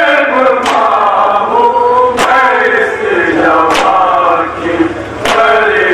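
Men chanting a Shia noha in Urdu into microphones, a held, wavering melodic line, with a sharp slap landing four times at an even beat about every second and a half, the rhythm of matam chest-beating.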